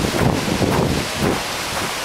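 Wind buffeting the microphone in irregular gusts over a steady hiss of ocean surf.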